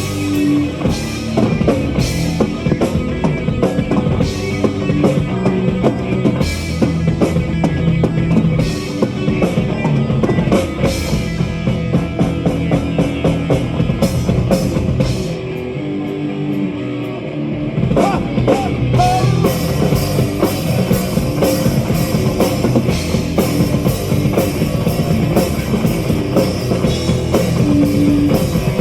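Live metal band playing an instrumental passage with drum kit and guitars. The bass and kick drop out for a couple of seconds a little past halfway, then the full band crashes back in with fast drumming.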